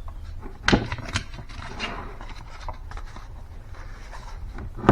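Kitchen handling sounds: light scraping and rustling with a few sharp knocks, as a bowl and a bag of mashed potatoes are handled to be set up for weighing.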